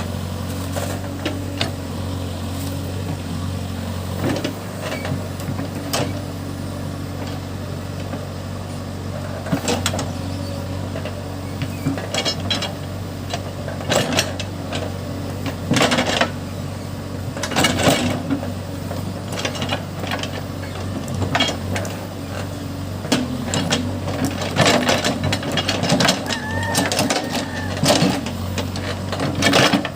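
Case backhoe loader's diesel engine running steadily while it digs into a hillside, with frequent sharp knocks and scrapes from the digging, more of them in the second half.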